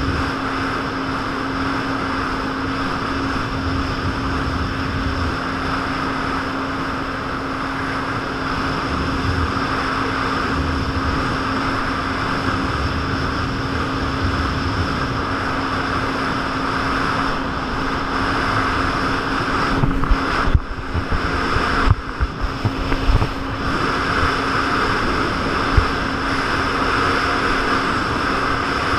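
Jet ski engine running at a steady speed, its drone under a constant rush of wind and water. About twenty seconds in, the sound breaks up for a few seconds with several brief dropouts and sharp knocks.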